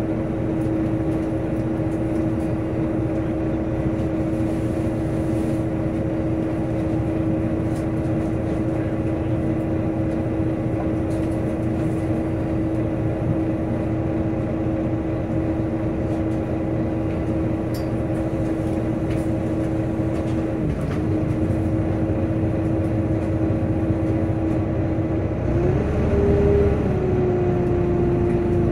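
Volvo B9TL bus's engine cooling fan whining loudly at a steady pitch over engine and road rumble, heard from inside the bus. The whine dips briefly about 21 seconds in. Near the end it rises and then settles, with the engine louder underneath.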